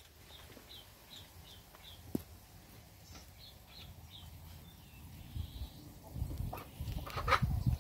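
Small bird chirping: a run of short, high chirps about three a second, pausing and returning briefly, over low rumbling and a few knocks that grow louder near the end.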